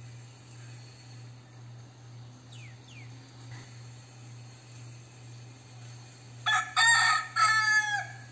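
Crossbred gamecock rooster crowing once, about six seconds in: a short broken opening, then a long call that falls in pitch at the end.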